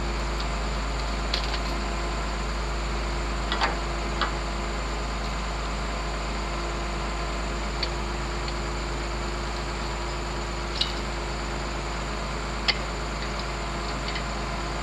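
Steady engine idling hum throughout, with about seven sharp, isolated clicks and clinks a second or two apart from hand work at the front of the machine.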